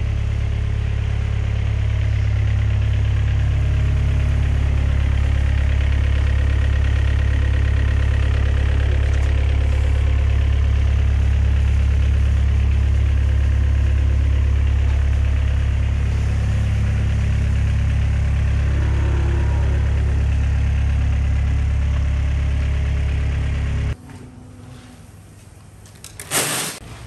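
Compact wheel loader's engine running steadily at idle, a deep even hum that stops abruptly near the end, followed by a couple of short sharp sounds.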